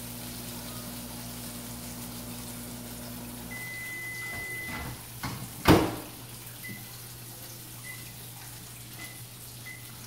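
Water running from a kitchen tap into the sink, with one loud sharp clank a little over halfway through.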